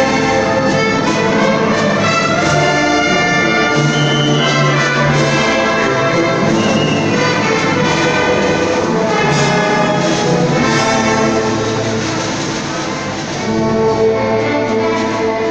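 Symphony orchestra playing, with the brass to the fore. The music eases off slightly and then swells again near the end.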